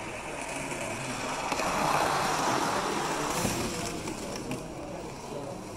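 Model train running on the layout track: a rolling, whirring noise that grows louder, peaks about two seconds in as it passes close, then fades.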